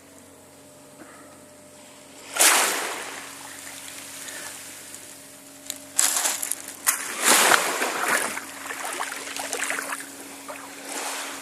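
Small sea waves washing and sloshing in the shallows. It is quiet at first, with a sudden wash about two seconds in and a run of louder splashes from about six seconds on.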